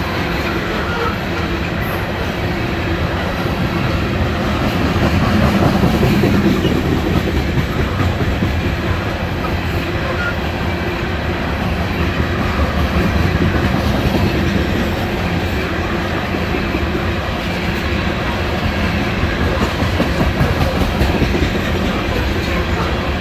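CSX coal train's open-top steel coal cars rolling past, a steady rumble with the wheels clicking over rail joints, swelling a little about five seconds in.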